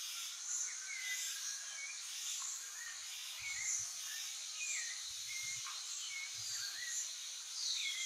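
Jungle ambience: high-pitched insects buzzing in a steady drone that swells in pulses about once a second, with scattered short whistled bird notes, some sliding down in pitch near the end.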